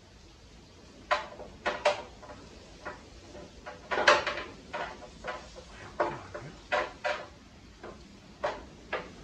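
A 1968 Firebird's steel front coil spring knocking and clunking against the lower control arm and spring seat as it is worked into place by hand: a dozen or so short, irregular knocks, the loudest about four seconds in.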